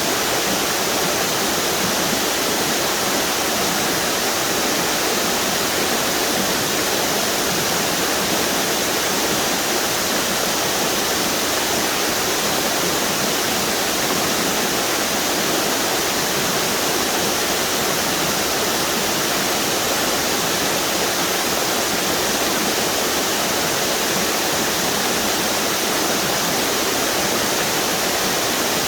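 Steady rush of river water pouring over a string of low waterfalls, an even, unbroken roar.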